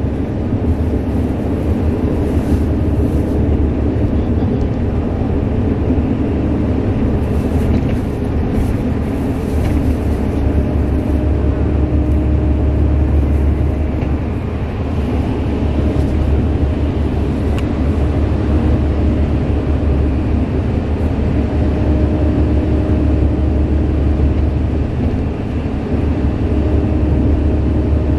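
Steady low engine and road rumble of a moving vehicle heard from inside its cabin, with a faint hum that fades in and out.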